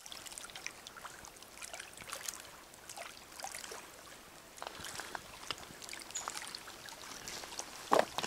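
Small waves lapping and trickling against a pebble beach at the water's edge: a steady wash of light splashes and clicks, with one louder click near the end.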